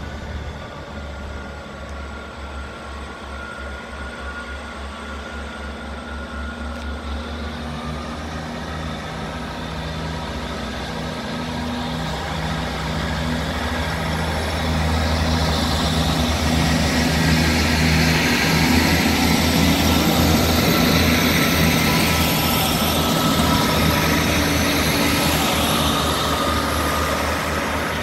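Class 158 diesel multiple unit's engines running under power as the train draws near and passes close by, with the engine note lifting about a quarter of the way in. The sound grows steadily louder, with wheel and rail noise filling in at its loudest.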